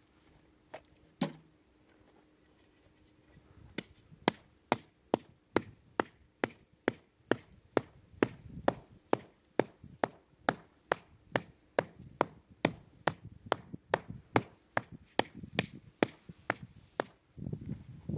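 A single knock about a second in, then a long, even run of sharp knocks, about two to three a second, like something being struck over and over, from about four seconds in until near the end.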